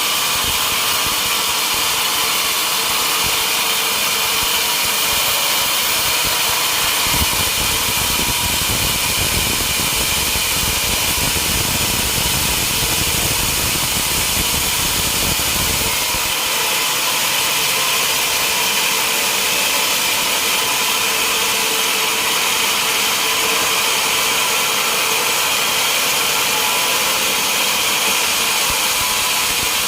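Sawmill saw and its engine running steadily, sawing mahogany logs, with a deeper rumble for about nine seconds partway through.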